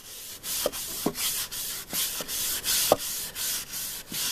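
A disinfectant wipe scrubbing sawdust off a wooden surface in quick back-and-forth strokes, about two a second, with a few faint squeaks.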